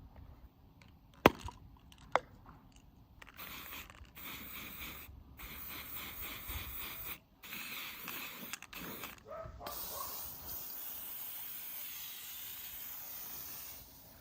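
Two sharp clicks, then a hissing spray in several bursts with short gaps between them.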